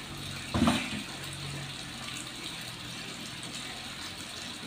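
A single dull thump about half a second in, over a steady background hiss.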